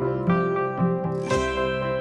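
Background music with plucked string notes over a sustained drone.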